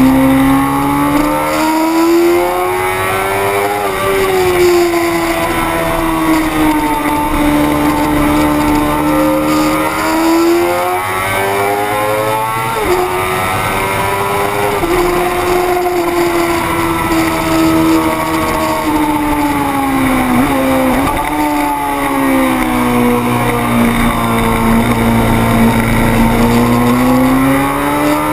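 600 cc racing motorcycle engine at full race pace, its revs climbing and falling as it accelerates and slows through the corners, with abrupt jumps in pitch at gear changes about halfway through and again about three-quarters through. A steady rush of wind noise runs beneath it.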